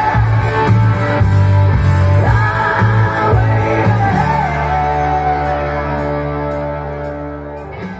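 Rock music with a singing voice and guitars. About four seconds in the music settles on a long held chord that slowly fades.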